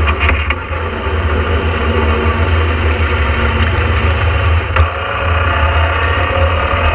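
Vauxhall 2.0-litre four-cylinder engine of a rally car heard from inside the cabin, running under load and dropping a gear from third to second on a sequential gearbox. A few short clicks come just after the start and a sharp knock about two-thirds of the way in.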